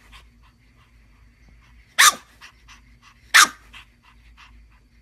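Pug puppy giving two short, sharp barks about a second and a half apart, with fainter small sounds in between.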